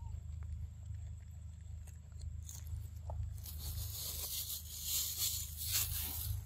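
A macaque biting and chewing corn close to the microphone: a run of crunching and tearing noises that starts about three and a half seconds in and gets louder, over a steady low rumble.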